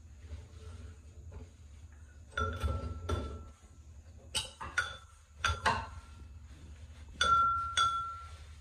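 Frosted glass light-fixture shades clinking as a handheld duster knocks against them: about seven light knocks in the second half, each leaving a short ringing tone.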